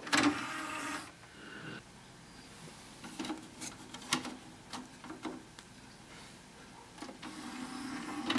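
Philips DVD player's motorised disc tray whirring as it slides open, then a few sharp clicks and taps as a disc is set into it. Near the end the tray motor whirs again as the tray draws shut, ending in a knock.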